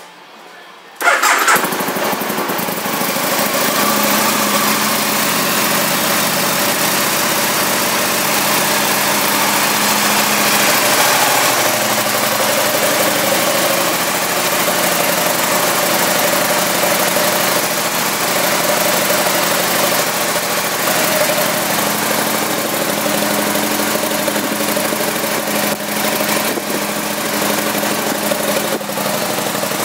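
2008 Aprilia Tuono 1000R's V-twin engine starts about a second in, then idles steadily.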